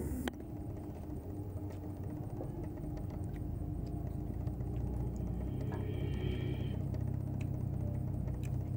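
A low, steady engine rumble, growing a little louder about halfway through.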